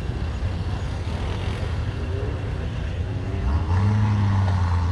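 Off-road 4x4's engine running, its low steady drone getting louder about three and a half seconds in.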